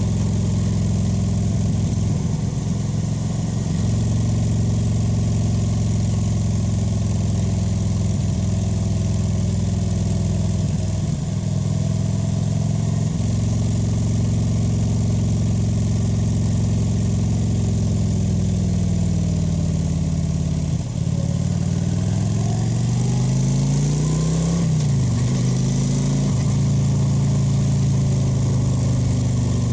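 Kawasaki VN 900's V-twin engine and exhaust running under way at a steady cruise. About three-quarters of the way through it briefly eases off, then rises in pitch as it accelerates for a couple of seconds, and settles back to a steady run.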